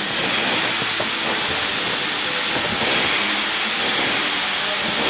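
A steady, loud hiss of noise, with faint low tones underneath.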